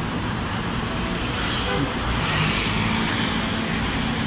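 Busy city road traffic: cars and buses passing below, with steady engine hum and tyre noise. One vehicle swells louder as it goes by a little past the middle.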